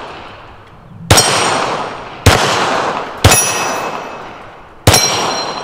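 Four pistol shots, about a second apart with a longer pause before the last, each followed by the ringing of a struck AR500 steel target.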